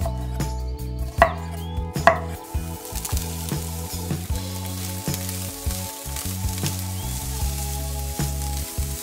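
A knife chopping red bell pepper on a wooden cutting board, with three sharp knocks in the first two seconds. Then diced onion and red bell pepper sizzle in hot oil in a frying pan and are stirred, a steady hiss.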